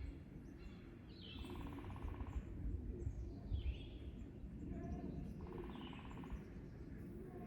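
Songbird singing outdoors: a high descending note followed by a fast low trill, with the phrase heard twice about four seconds apart. A steady low background rumble runs underneath.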